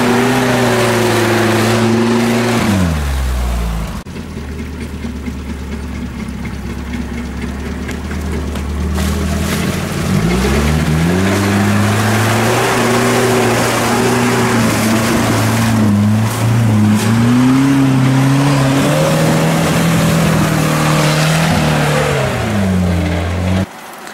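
GAZ-69 off-roader's engine working hard through deep mud. The revs fall away about three seconds in and run low for several seconds, then climb again around ten seconds in and rise and fall repeatedly under the throttle. Near the end the sound cuts off abruptly to a quiet, wind-like background.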